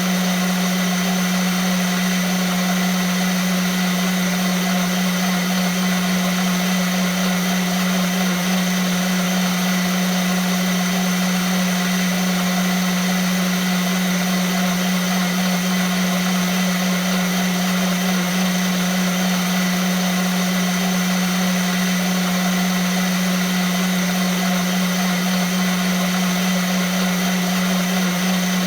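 Vitamix blender motor running steadily at constant speed: a strong, steady low hum under an even high whir, with no change in speed or load.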